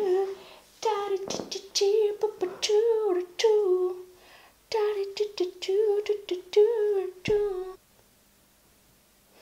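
A woman humming a wordless tune in short, gliding phrases, with a few sharp clicks among them; the humming stops well before the end.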